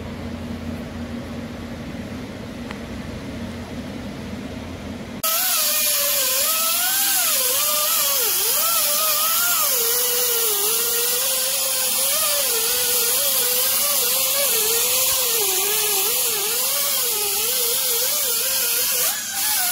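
Low steady shop hum, then about five seconds in a pneumatic right-angle grinder with a small sanding disc starts working the edge of an aluminium intake panel: a loud whine with air hiss, its pitch wavering as the disc is pressed and eased on the metal.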